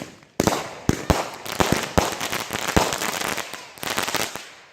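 Consumer firework cake, a 63-shot repeater, firing: a rapid, dense run of sharp bangs and crackling, which dies down near the end.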